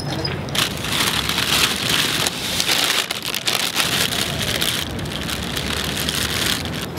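A plastic bag rustling and crinkling as it is handled, starting about half a second in and stopping shortly before the end.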